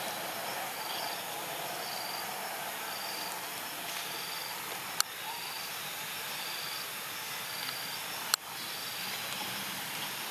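Insects chirping: a short high chirp repeating about once a second over a steady hiss, with two sharp clicks, about five and eight seconds in, that stand out as the loudest sounds.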